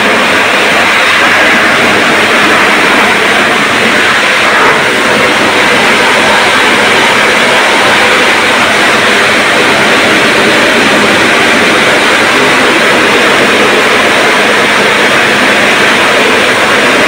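Pressure washer spraying a water jet into a car's front grille and air-conditioning condenser, a loud steady hiss with no breaks.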